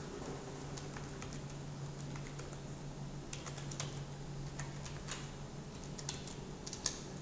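Computer keyboard being typed on: a scatter of separate keystrokes, irregularly spaced, over a low steady hum.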